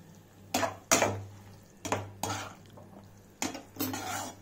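Perforated metal spatula scraping and knocking against a non-stick pan while stirring soya chunks in a thick sauce: about six short strokes, coming in three pairs.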